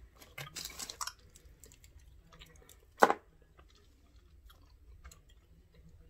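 A person chewing a chewy caramel candy, with small wet clicks and smacks of the mouth and one sharper, louder sound about three seconds in.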